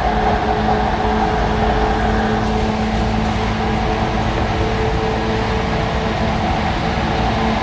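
JR 185 series electric train heard from on board: a steady rumble with a few steady humming tones from the car's running gear and equipment.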